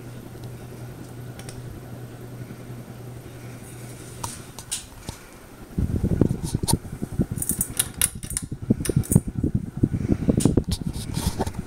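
Hampton Bay Tripoli ceiling fan running with a steady motor hum. About halfway through, loud irregular rumbling and clicking begins.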